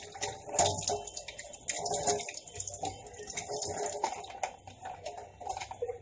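Hands splashing water onto a face, rinsing off a facial scrub with plain water, in irregular splashes and drips.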